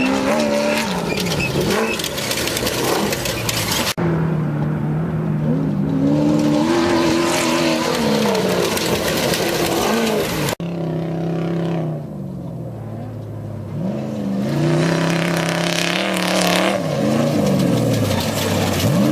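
Off-road race vehicles' engines revving hard, the pitch climbing and dropping again and again as they accelerate and shift, cut abruptly twice.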